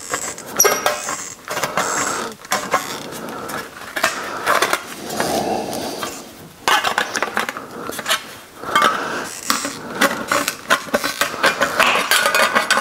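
Hand aviation snips cutting thin sheet steel: an irregular run of sharp metallic snips, with the loose cut sheet clinking and rattling.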